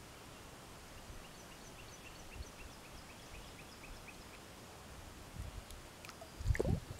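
A small bird calling a fast, even run of short high chirps, about five a second, for some three seconds over faint outdoor background. Near the end come a few loud knocks and rustles of handling close to the microphone.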